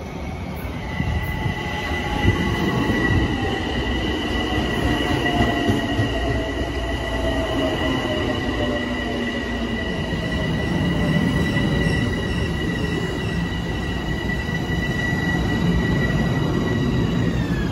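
Metro-North M7 electric multiple-unit train pulling into the platform and slowing, with a steady high whine over the rumble of wheels on rail. A lower motor tone falls slowly in pitch as the train loses speed, and near the end the high whine glides down.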